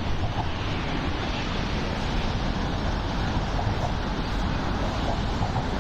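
Steady city traffic noise: a continuous, even rush of road vehicles, with no single event standing out.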